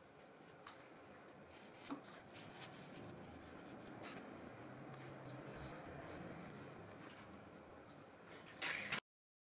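Faint rubbing and scattered small clicks of hands handling paper. A louder rustle comes just before the sound cuts off abruptly about nine seconds in.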